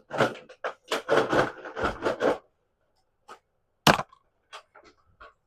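Toy packaging being opened and handled: a dense run of crackling for about two and a half seconds, then scattered clicks and one sharp snap about four seconds in.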